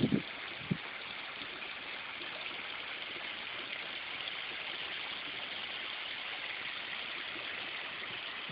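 River water flowing steadily, an even rushing hiss of the current. A couple of brief low bumps come in the first second.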